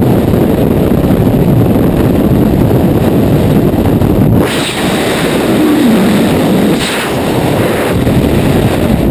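Loud freefall wind rushing over a skydiver's helmet-mounted camera microphone. The rush changes about four and a half seconds in, getting thinner and hissier.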